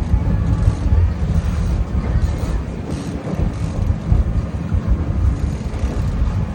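Boat engine running steadily, mixed with wind buffeting the microphone.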